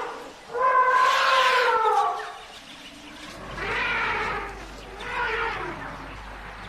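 Elephant trumpeting: one loud call lasting under two seconds that drops in pitch at its end, followed by two quieter, rougher calls.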